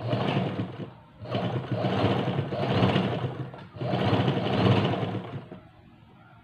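Electric domestic sewing machine running as it stitches a t-shirt seam, in three runs with brief pauses between them. It stops about five and a half seconds in.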